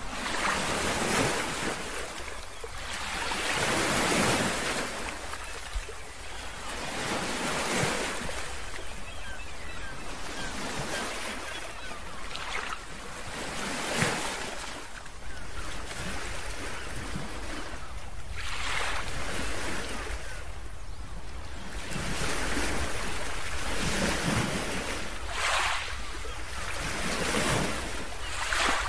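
Ocean surf breaking and washing in over a rocky shore, swelling and falling every few seconds with sharper crashes now and then, over a low wind rumble on the microphone.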